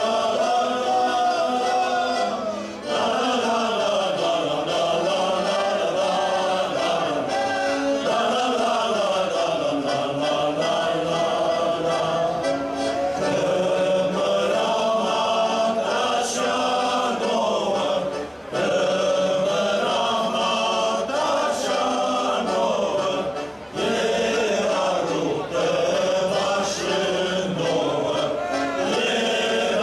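A group of voices singing a folk song together, in long phrases with brief breaks about 3, 18 and 24 seconds in.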